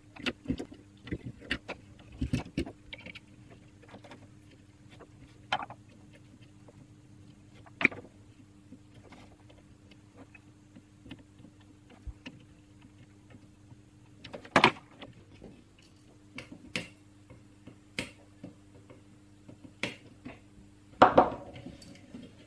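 Workbench handling noise: scattered clicks and knocks as a small circuit board is clamped, turned and released in a PCB holder and tools are picked up and set down, the loudest knocks near the end. A steady low hum runs underneath.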